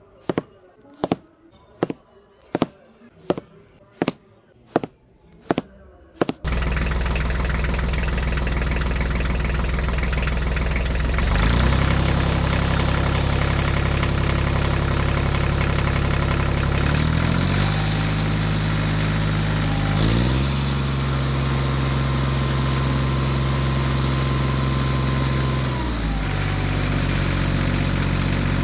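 Sharp taps about two a second, then an engine sound starts abruptly about six seconds in and runs steadily, its pitch stepping up or down a few times.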